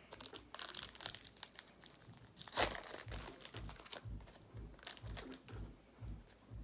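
Foil Pokémon booster pack wrapper crinkling and tearing as it is opened and handled, with a cluster of sharp crackles, the loudest about two and a half seconds in, then quieter rustling as the cards come out.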